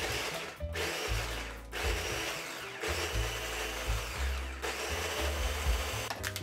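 Nutribaby baby-food steamer-blender blending kiwi and kale into a purée. It is run in about five pulses, with brief stops in between.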